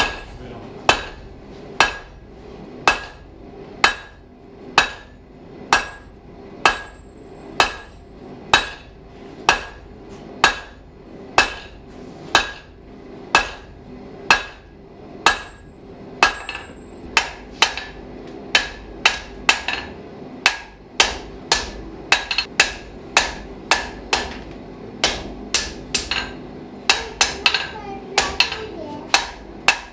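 Blacksmith's hand hammer striking hot round iron on an anvil, forging it out into a nail: steady blows about once a second, quickening to around two a second in the second half. Each blow rings briefly.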